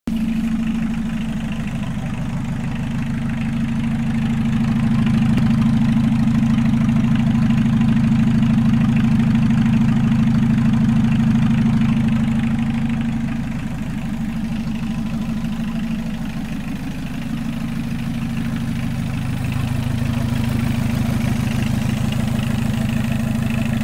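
Volkswagen 1.6 four-cylinder diesel engine idling steadily while run out of the car, with a clattering diesel beat.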